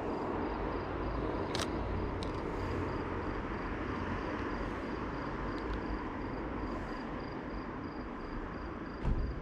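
Night street ambience: a steady low rumble of traffic, with a faint, evenly pulsing high chirp running through it. Two short sharp clicks come in the first few seconds, and a dull thump near the end.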